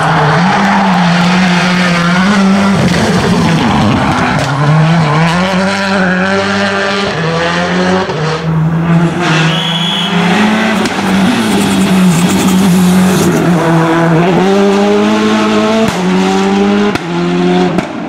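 Citroën Xsara WRC rally car's turbocharged four-cylinder engine driven hard, over several passes, its revs rising and dropping in repeated steps as it shifts up and lifts off.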